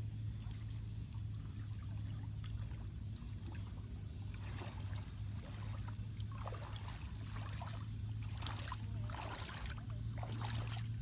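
Water sloshing and splashing in irregular strokes that come more often from about four seconds in, over a steady low hum.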